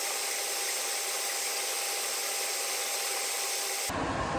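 Steady hissing noise with a faint, thin steady tone in it; just before the end it changes abruptly to a fuller, deeper rushing noise.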